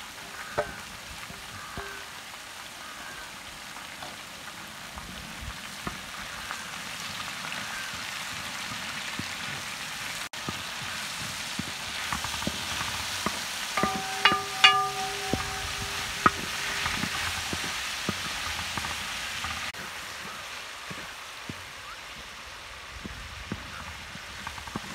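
Chicken pieces, chana dal and sliced onions sizzling in oil in a wide metal pan while a spatula stirs and scrapes them. The frying grows louder about halfway through, with a few sharp spatula knocks and scrapes against the pan.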